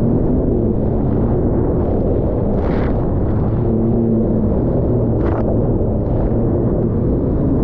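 Personal watercraft running at speed over choppy water: a steady engine drone heavily buffeted by wind on the microphone, with two short hissing bursts, about three and five seconds in.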